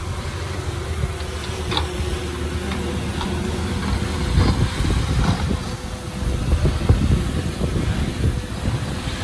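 Komatsu bulldozer's diesel engine running steadily, with a few short sharp noises over it.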